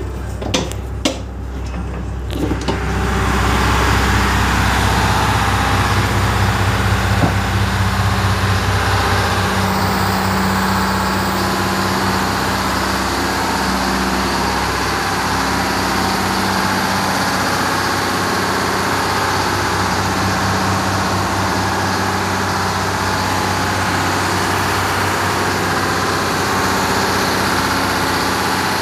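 Ship's engine-room diesel generator engines running: a loud, steady mechanical drone with a low hum underneath. Two sharp clicks come near the start, and the engine noise grows louder about three seconds in.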